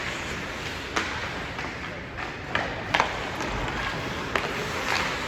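Sporadic sharp clacks and knocks of play during a team sports game, about five in a few seconds, over steady noise from the venue.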